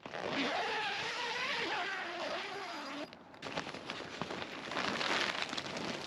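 Zipper on a greenhouse's zippered doorway being pulled open, its pitch wavering with the speed of the pull for about three seconds. A short pause follows, then a run of clicks and rustling.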